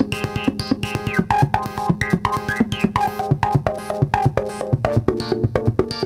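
DIY modular synthesizer playing a rapid sequenced pattern of short, very percussive pitched notes through a home-etched Steiner-Parker voltage-controlled filter, many notes opening with a quick falling filter sweep. About three quarters of the way through, the pattern moves lower in pitch.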